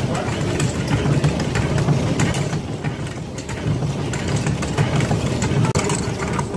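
Millstones of a stone grist mill turning and grinding wheat, with a steady low rumble and a rapid, continuous rattle from the damsel knocking the wooden shoe that feeds grain into the stones.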